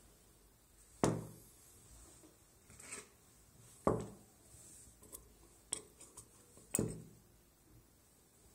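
Handling noises on a worktop: three dull knocks about three seconds apart as things such as a plaster dental model are put down, with a few light clicks in between.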